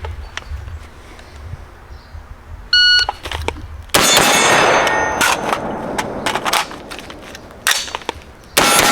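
A shot timer beeps once, then a 5.56 AR-15-type rifle fires two shots, pauses for a reload and fires two more. Each report is followed by a ringing tone, as from hit steel targets.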